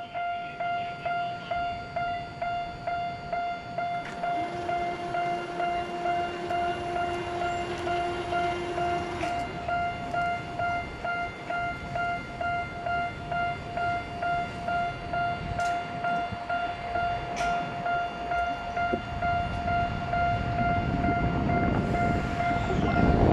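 Level-crossing alarm bell ringing steadily, about two rings a second. Near the end a Tokyo Metro Ginza Line train's rumble grows louder as it approaches the crossing.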